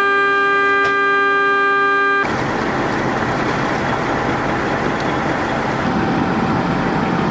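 A vehicle horn sounding one steady, continuous note, which cuts off suddenly about two seconds in; a loud, even rushing noise then takes over.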